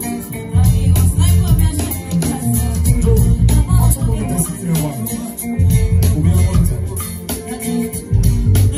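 Live band playing: drum kit, conga drums and bass guitar with keyboard, over a heavy bass line and a steady beat.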